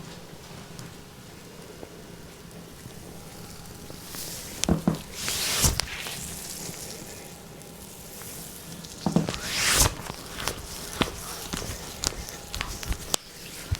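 Hands working on bare skin during a deep-tissue massage. Quiet rubbing gives way to two bursts of loud slaps and sliding swishes, about five and ten seconds in, followed by scattered lighter slaps and taps.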